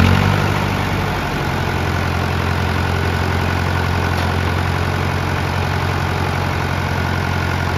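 Massey Ferguson 165's four-cylinder Perkins diesel engine coming down from raised revs to a steady idle about a second and a half in, then idling evenly.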